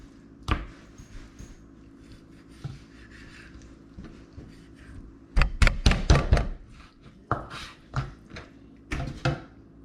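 Knife chopping raw chicken into pieces on a cutting board: one sharp knock about half a second in, a quick run of loud chops around the middle, then a few single knocks near the end.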